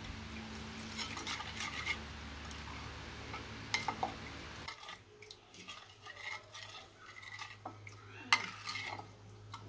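Water poured into a ceramic bowl of spice marinade, then a metal spoon stirring the liquid, with scattered light clinks and scrapes against the bowl.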